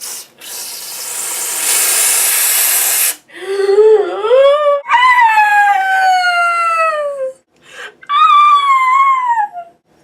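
A spraying hiss for about three seconds, then three loud, high-pitched, drawn-out wails that mostly fall in pitch.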